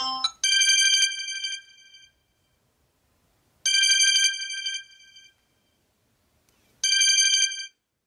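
Samsung Galaxy Note 10 Lite ringtone: a single bright bell-like ring sounding three times, about three seconds apart, each dying away over a second or so. It begins just as the last notes of a previous melodic ringtone cut off.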